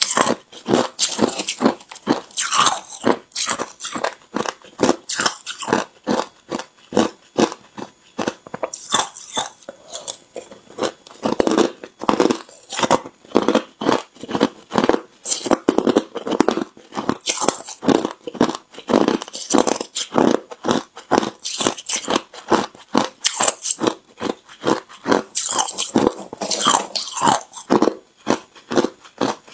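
A person biting and chewing hard, clear ice: a steady stream of sharp crunches and cracks, several a second.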